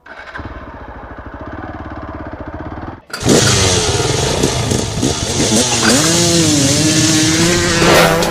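Motorcycle engine running at a steady, evenly pulsing idle. After a brief break about three seconds in it is much louder, revving, with its pitch rising and falling.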